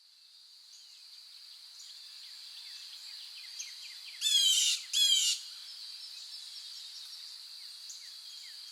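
Outdoor nature sounds: a steady high insect drone with faint chirps, fading in. Two loud, harsh bird calls come one after the other about four and five seconds in.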